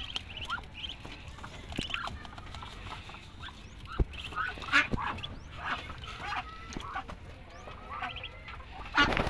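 Muscovy ducklings peeping, many short chirps throughout. About four and five seconds in come two sharp knocks, a plastic cup scooping feed from a clay pot, and near the end a brief louder noise.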